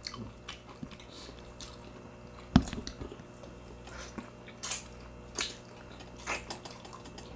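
Eating sounds: chewing and biting food, broken by scattered short clicks and taps, the sharpest about two and a half seconds in.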